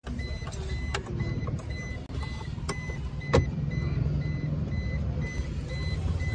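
Sharp plastic clicks and knocks as a Maruti Suzuki Brezza's stock stereo and dashboard trim are pried with a screwdriver, one knock louder than the rest about halfway through. Under them run an even electronic beeping, a few beeps a second, and a steady low rumble.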